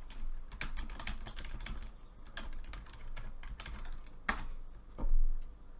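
Typing on a computer keyboard: a quick, uneven run of keystrokes, with one louder keystroke about four seconds in. About a second later comes a dull thump, the loudest sound.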